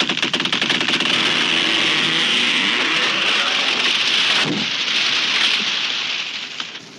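A tree crashing down: a quick run of sharp cracks as the wood gives way, then a long rushing crash of branches and leaves, with a heavy thud about four and a half seconds in, dying away near the end.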